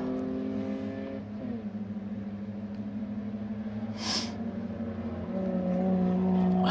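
BMW E30 race car's straight-six engine running steadily, heard from inside the stripped cockpit. Its pitch dips slightly about a second in and rises a little again past five seconds, with a short hiss about four seconds in.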